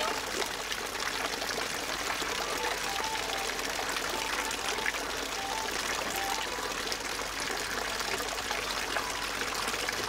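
Water pouring and trickling steadily into a capybara bathing pool.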